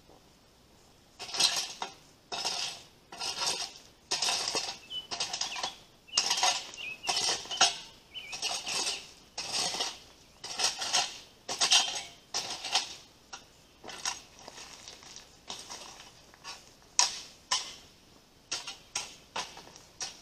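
Rake dragged through dry leaves over gravel in repeated strokes, a scraping rustle with a stony clatter roughly once or twice a second, starting about a second in and lighter for a stretch after the middle.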